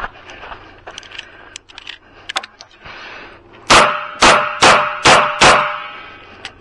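Five handgun shots fired in quick succession, about half a second apart, starting a little over halfway through, each with a short ringing echo. A few faint clicks come before them.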